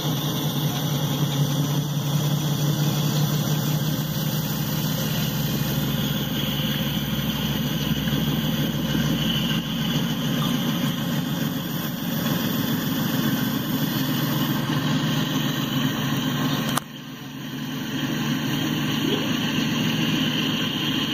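Norfolk Southern diesel-electric locomotives passing at the head of a freight train, their engines running with a steady low drone. The sound drops sharply about 17 seconds in, then builds back up.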